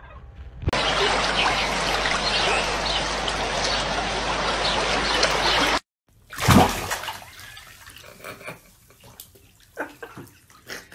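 Water running steadily for about five seconds, then cutting off abruptly. A short louder sound follows, then a few faint knocks.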